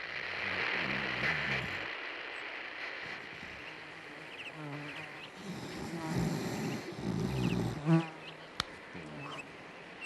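Opening of a 90s dance-pop recording: a steady buzzing, insect-like sound with short chirping sweeps. There is a loud thump about eight seconds in, then a sharp click.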